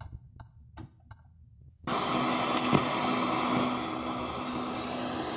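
A few light clicks of the Aiwa CSD-ES340 boombox's top controls, then about two seconds in its speakers come on with loud, steady radio static, the hiss of the tuner between stations, with a faint low hum under it.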